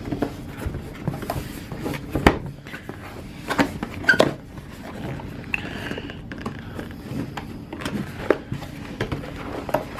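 A cardboard camera box and its packaging being opened by hand: irregular taps, scrapes and rustles, with sharper knocks about two and four seconds in.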